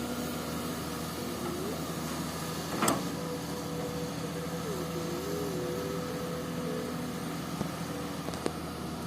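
Komatsu PC200 hydraulic excavator's diesel engine running steadily at work, with a wavering whine over the drone. A single sharp knock comes about three seconds in, and small clicks come near the end.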